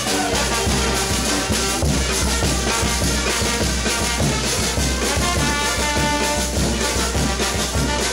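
Peruvian brass banda playing a dance tune live: trumpets and trombones over drums keeping a steady beat.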